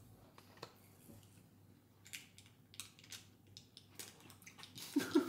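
Faint, scattered crackles and soft crunches of a burger being chewed and paper fast-food packaging being handled, with a brief low hum about five seconds in.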